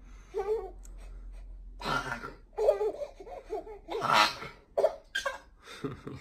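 Short bursts of laughter and breathy, cough-like playful vocal sounds from a woman playing face to face with a baby, several in a row with the loudest about four seconds in.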